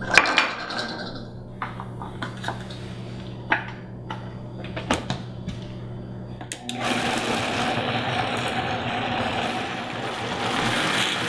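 A few sharp knocks and clinks as the blender jar is handled and its lid goes on. About seven seconds in, a countertop blender starts and runs steadily, puréeing tomatoes with ice.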